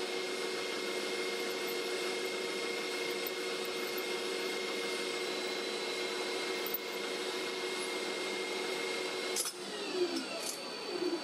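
Metal lathe running with the spindle turning while a center drill in the tailstock drill chuck is fed into the workpiece to drill a pilot hole: a steady machine hum with a few steady tones. Near the end there is a click, the steady tones stop and a couple of falling whines follow.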